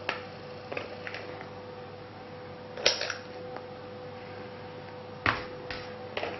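Sharp clicks and knocks of a metal lever-release portion scoop as it scoops batter from a bowl and releases it into paper cupcake liners in a metal muffin tin. About eight of them come irregularly, the loudest about three seconds in and just after five, over a steady faint hum.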